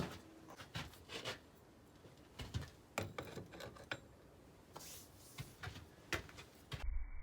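Faint, scattered clicks and knocks of small objects being handled in a workshop. Just before the end the sound cuts to background music.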